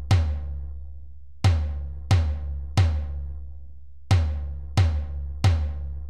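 Hand drum playing three even beats and a one-beat rest over and over, about one and a half beats a second. Each stroke is a deep boom that rings on, seven strokes in all.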